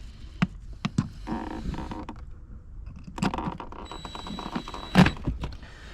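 Small parts being handled under a car's dash: scattered clicks and rustling, with a faint steady high-pitched tone in the middle and one sharp knock about five seconds in.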